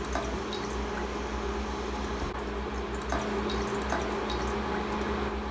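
Milk poured in a steady stream from a plastic measuring jug into a stainless steel saucepan, filling the pan.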